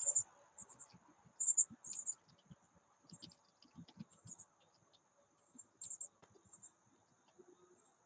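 Birds at a backyard feeder: short, very high-pitched chirps in quick clusters, the loudest a little over a second in, over a faint steady high whine, with soft taps and scratches from birds moving on the feeder.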